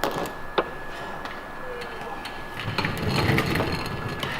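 Scattered light clicks and taps of hands working on a fuel pump relay and its connector pins, over a faint steady high-pitched tone.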